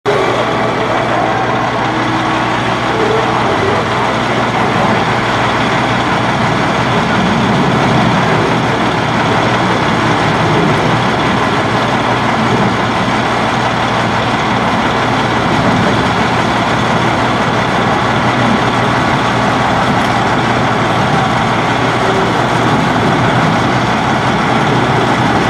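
A military heavy truck's diesel engine running steadily, with people talking around it.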